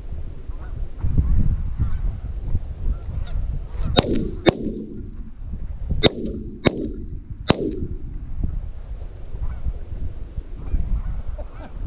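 Geese honking, then five shotgun shots about four seconds in: two half a second apart, then three more spread over about a second and a half.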